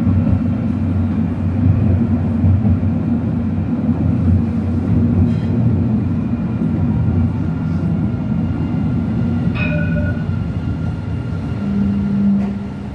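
Tram running, heard from inside the car: a steady low rumble with faint whining tones above it. A steady low hum comes in near the end, as the tram is alongside a stop platform.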